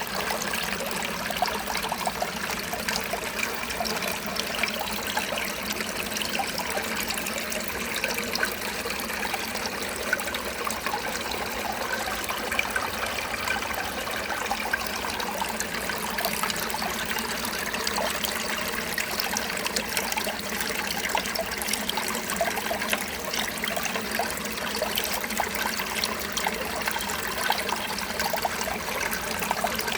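Steady trickling water, an even wash of sound dotted with many fine crackles.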